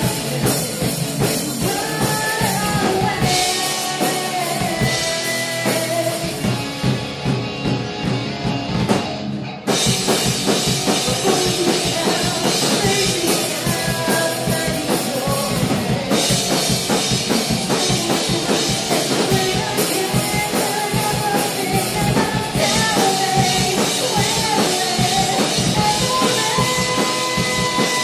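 Live rock band playing, a woman singing lead over electric guitar and drum kit. About ten seconds in, after a short stretch where the cymbals drop out and it eases off, the full band crashes back in.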